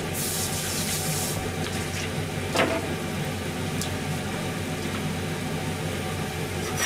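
Saucepan of meat and vegetables in broth simmering on a gas stove over a steady low hum. A brief hiss sounds in the first second, and a single light knock comes about two and a half seconds in.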